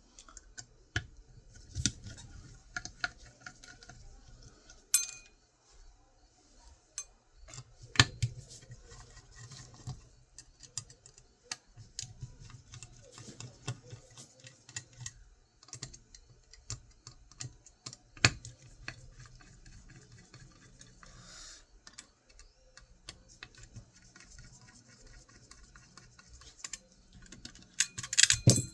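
Metal parts of a hard drive being worked apart by hand with small tools: irregular light clicks, taps and scrapes, with a few sharper knocks and a louder cluster of clatter near the end.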